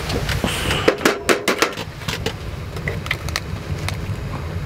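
A quick run of sharp taps about a second in, then scattered lighter taps: eggs being cracked on a metal camping cup and the cups knocking, over a steady low background noise.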